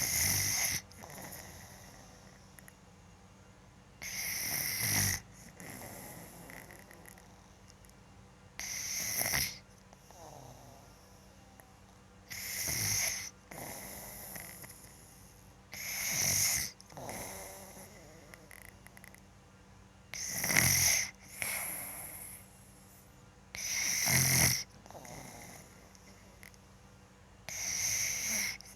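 A sleeping boy snoring loudly and regularly, one snore about every four seconds, each followed by a softer breath.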